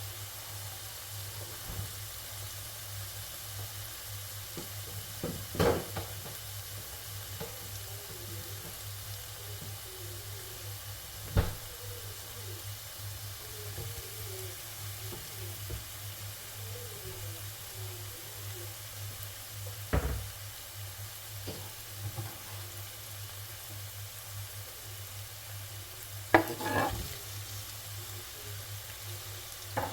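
Onion, garlic and tomato paste frying in a pan while a utensil stirs, with a few sharp knocks of the utensil against the pan over a steady low hum.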